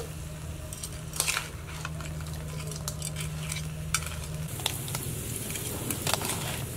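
Small crabs stir-frying in a steel wok, sizzling steadily while a metal spatula turns and scrapes them. The spatula knocks against the pan in scattered sharp clinks.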